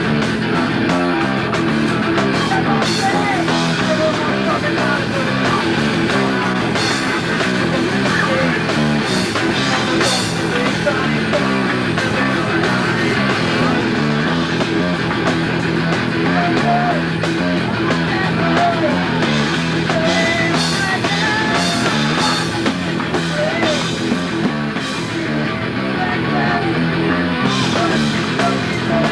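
A live rock band playing a song: electric guitars over a drum kit, a steady wall of sound throughout.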